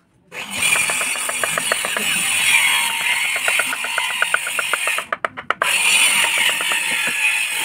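Rapid light taps of a wooden mallet on a wood-carving chisel, several a second, as the chisel cuts into the wood of a carved flower panel. A steady loud hiss runs under the taps and drops out briefly about five seconds in.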